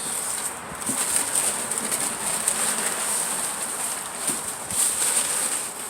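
Cardboard box and its packing being rustled and handled, an uneven rustle that rises and falls, over a steady high hiss.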